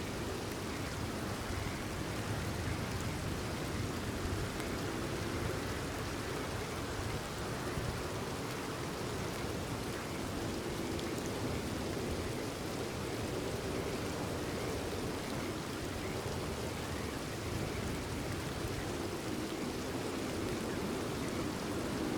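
Steady, even rain falling, with frogs calling faintly in the background.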